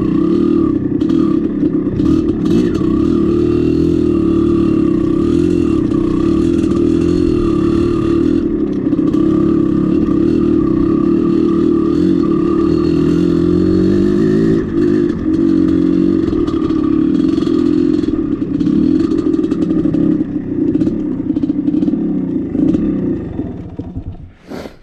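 Dirt bike engine running while riding, its pitch rising and falling with the throttle, then dying away near the end.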